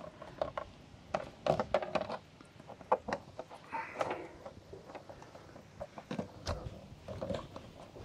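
Scattered small clicks, taps and rubbing of a clear plastic hose being fed by hand through a drilled hole beside a water heater's drain fittings, with a short scraping rub about four seconds in.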